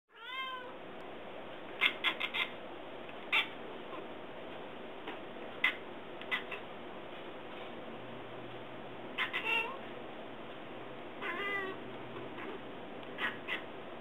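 Domestic cat chirping and chattering at birds she is watching, her "bird voice": many short chirps, often in quick runs of two to four, with a longer wavering call about eleven seconds in.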